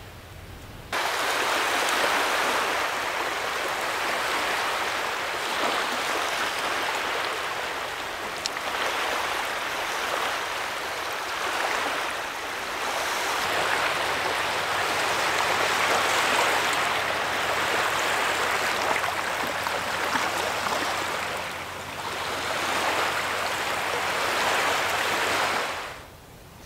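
Small waves washing in over a muddy, stony shoreline, a steady wash of water that swells and eases every few seconds. It cuts in abruptly about a second in and fades out near the end.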